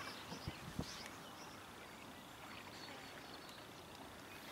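Faint outdoor ambience: a steady low hiss, with two faint short clicks in the first second.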